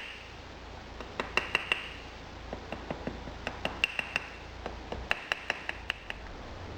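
Quick, light rapping taps on a pattern set in a sand mould, loosening it so it can be drawn out cleanly. The taps come in three runs of several a second, many with a short metallic ring.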